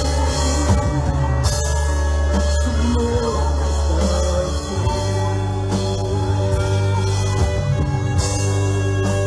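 Live worship band music with a steady bass, held keyboard chords, drums and singing; cymbal washes come in about one and a half seconds in and twice more near the end.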